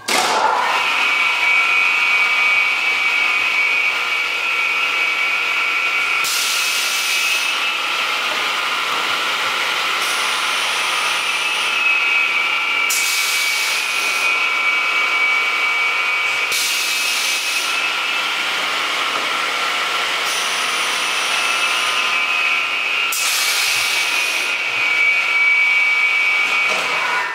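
Both 3-horsepower motors of a Pistorius 12-inch dual miter saw switched on and running free with their chip blowers, no cut being made. The sound starts suddenly and holds as a steady high whine, with a hiss that swells and fades about every three seconds.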